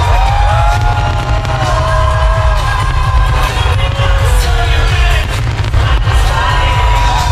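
Loud music with a gliding sung or synthesised melody, broken by repeated fireworks bangs over a heavy low rumble.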